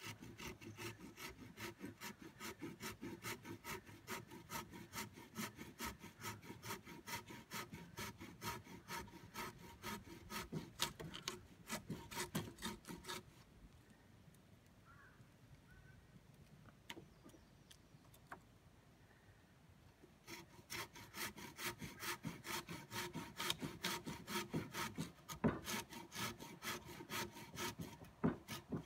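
Handsaw cutting through a pressure-treated timber by hand, in steady back-and-forth strokes. The sawing stops for several seconds about halfway through, then starts again and runs on until near the end.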